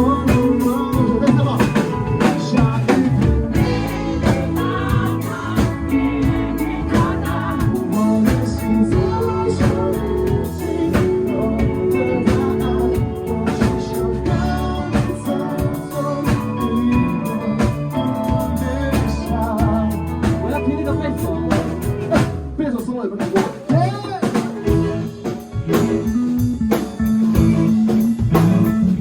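Live band playing a song, with singing over drum kit, bass and guitar. About three-quarters of the way through, the low end drops away for a few seconds, then the full band comes back in.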